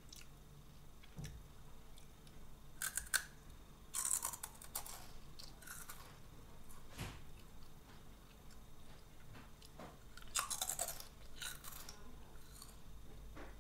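Crisp crunching and chewing of Calbee shrimp-flavoured puffed snack sticks, in several short bursts with pauses between bites. There is one sharp knock about halfway.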